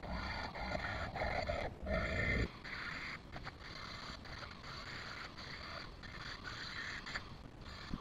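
A jeweller's rotary micromotor handpiece runs with a small bit against a sterling silver flower earring. There is a steady high tone from the motor, with heavier grinding noise for the first two and a half seconds, then lighter contact.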